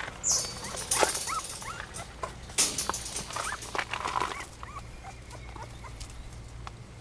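A puppy whimpering in short, squeaky whines while its paws scrabble and scrape on gravelly dirt as it squeezes under a shed. Loud scraping comes in the first three seconds, and the whines die away after about five seconds.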